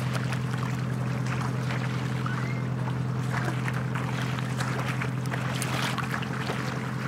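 Sailing yacht's inboard engine running steadily at low revs as the boat motors slowly by under bare masts, a low, even hum with a fast regular pulse.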